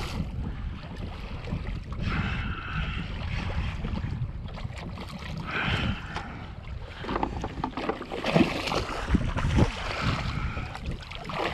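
A hooked redfish thrashing and splashing at the surface beside a kayak, over wind buffeting the microphone and lapping water. The splashes come in short, sharper hits, loudest between about eight and ten seconds in.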